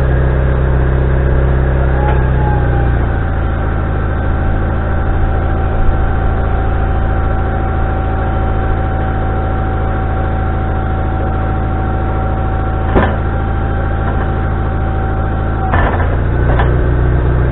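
Wood-Mizer LT40HD sawmill's engine running steadily. Its low note shifts about three seconds in and shifts back near the end, while a steady whine holds over most of the stretch. A couple of sharp clicks come near the end.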